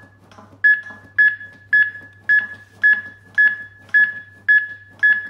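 HeartSine Samaritan 500P AED training unit's CPR metronome beeping: a short high beep repeated evenly, just under twice a second, setting the pace for chest compressions. The beeps start about half a second in, after a brief gap.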